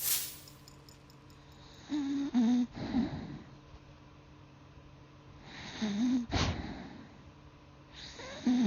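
Golden retriever snoring while asleep: three snores about three seconds apart, each a short wavering buzz followed by a breathy rush, with a brief sharp burst of noise at the very start.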